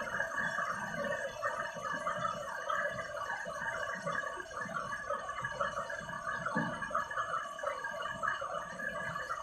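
Washing machine in its wash stage, water and suds churning continuously with an uneven, sloshing texture.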